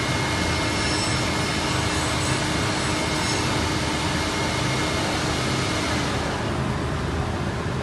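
Belotti 5-axis CNC machine running: a steady, loud machine noise with a faint high whine and a low hum. About six seconds in, the whine and the hiss drop away while the low noise goes on.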